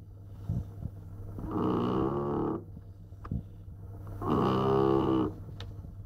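Staffordshire bull terrier snoring in its sleep: two snores about two and a half seconds apart, each lasting about a second.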